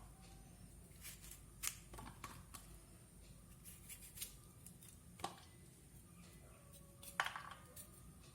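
Okra pods being cut and split lengthwise: faint, scattered snips and clicks of a blade going through the pods, about six over several seconds.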